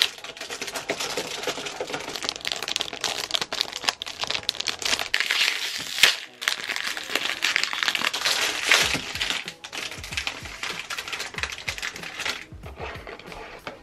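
A foil mystery-wand packet being torn open and crumpled by hand, a dense, continuous crackle of plastic and foil. Near the end a long cardboard wand box is drawn out of the packet.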